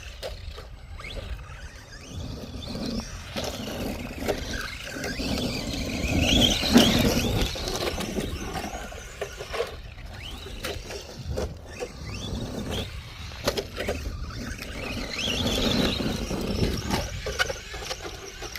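ARRMA Vorteks electric RC truck driving hard: its motor whine rises and falls in pitch in two surges of acceleration, the loudest about six seconds in and another near the end.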